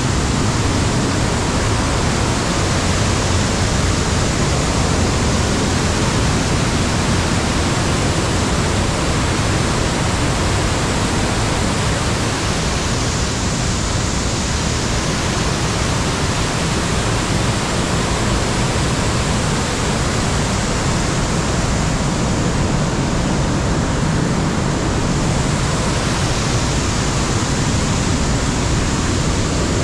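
Whitewater of a waterfall rushing through a narrow rock channel, a loud, steady rush of water.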